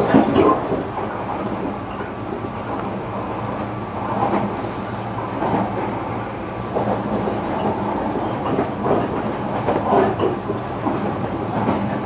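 Running noise heard inside a JR Kyushu 305 series electric train's motor car: a steady rumble of wheels on rail with a low hum. A few louder clatters come about half a second in, around four to five and a half seconds, and around ten seconds.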